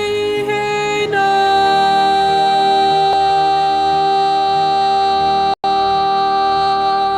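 A sung song ending with instrumental accompaniment: a contralto voice over the backing moves through a couple of short notes, then holds the final note for about six seconds before it stops. The sound cuts out for a split second a little before the end.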